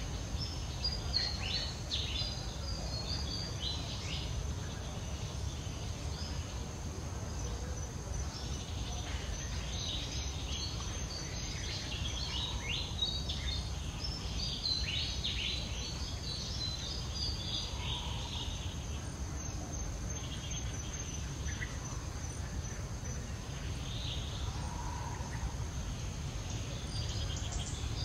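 Outdoor ambience: a steady high-pitched insect drone, with bursts of quick small-bird chirping, over a constant low rumble.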